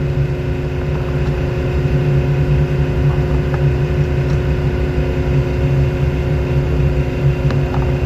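An engine running steadily, a constant low hum with a few fixed tones above it and no change in speed.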